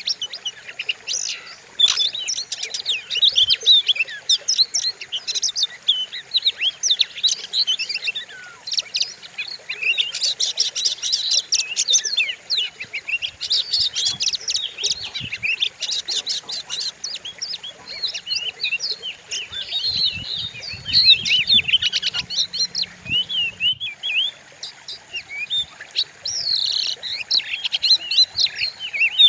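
Oriental magpie-robin (kacer) singing a fast, dense run of sharp chirps and short whistles without pause, the kind of lure recording played to provoke a captive kacer into singing.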